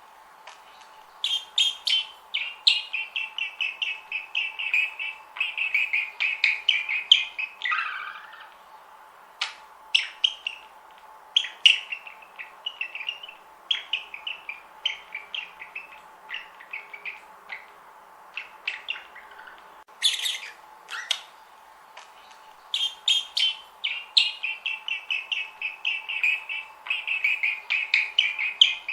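Budgerigars chirping and warbling: fast runs of short, high chirps with scattered single chirps between them, over a faint steady hum.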